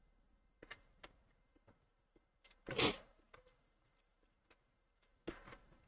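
Faint, scattered clicks of a computer mouse, with two short louder noisy sounds, one about three seconds in and one near the end.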